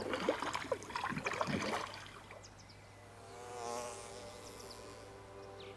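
Water splashing and dripping for about the first two seconds, then a soft, sustained chord of several steady tones fades in about three seconds in, like background music.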